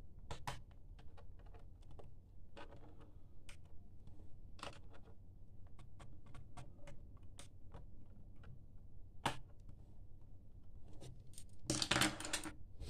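Scattered small clicks and taps of a laptop's plastic and metal parts being handled and refitted after its RAM modules are reseated, with a longer scraping burst near the end.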